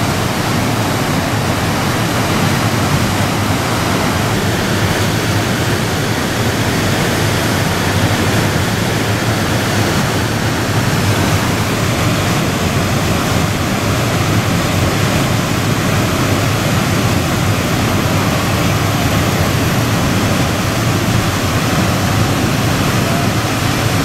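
Artificial whitewater rapids rushing: a loud, steady roar of churning water with no breaks.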